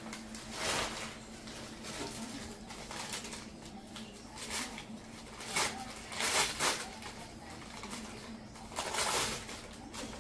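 Plastic or paper wrapping rustling and crinkling in short bursts as potted orchids are unpacked, over a steady low hum.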